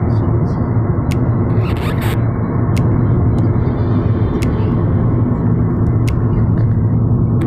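Steady low rumble of a moving car's engine and tyres on the road, heard inside the cabin, with a brief hiss about two seconds in.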